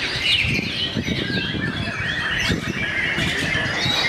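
Many caged white-rumped shamas (murai batu) singing at once at a song contest, a dense tangle of quick chirps and gliding whistles that never pauses.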